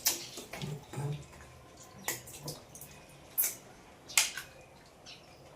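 Eating sounds: scattered short wet smacks and clicks of someone eating rice and fish by hand from a plate, with a faint murmured voice early on.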